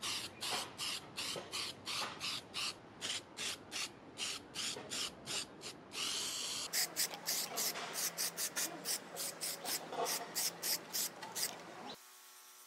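Aerosol spray-paint can spraying in short hisses, about two to three a second, with one longer spray halfway through. Near the end the hissing stops and only a faint hum is left.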